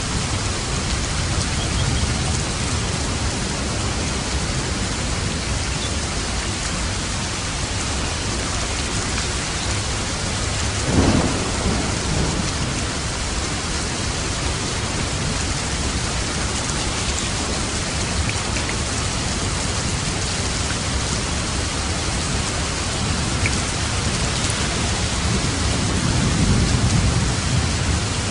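Steady heavy rain falling, with a short burst of thunder about eleven seconds in and a low thunder rumble near the end.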